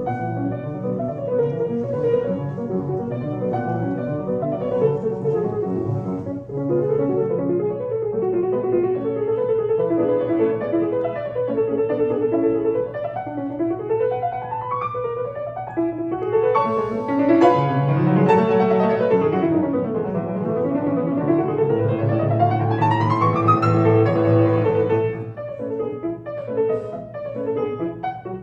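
Instrumental piano music with flowing chords and fast sweeping runs of notes up and down the keyboard through the middle.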